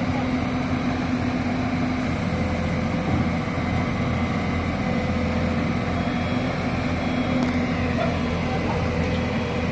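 Hyundai 215 crawler excavator's diesel engine running steadily under load, with a low hum, as the machine levers itself up onto a lowbed trailer with its boom and bucket.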